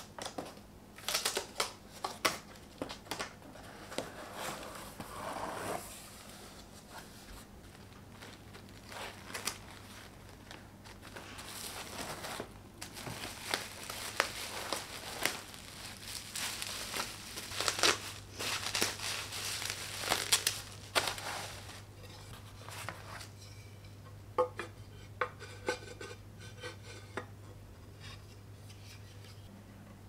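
A cardboard parcel being opened and unpacked: irregular rustling and crinkling of bubble wrap and foam packing sheets, with taps and scrapes of the cardboard box, busiest in the middle and sparser near the end.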